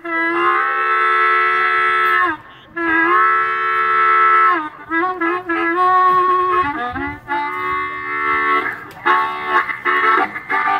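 Amplified harmonica played solo through a vocal microphone. Two long held chords come first, then shorter choppy notes and a pulsing rhythm near the end, in the style of a train-whistle and chugging imitation.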